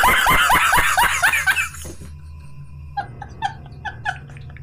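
A man laughing hard. Loud, rapid bursts of laughter break off about two seconds in, and after a short lull a string of short high-pitched laughs follows.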